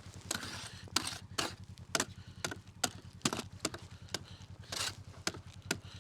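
A string of about a dozen sharp knocks or crunches, roughly two a second, over a steady low hum.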